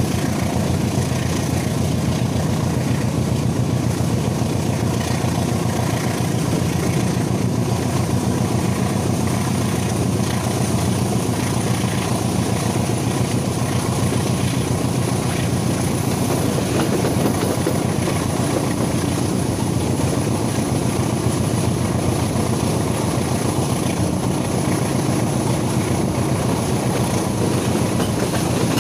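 Matarmaja passenger train running along the line, a steady, loud rumble of wheels on the rails heard from a coach window.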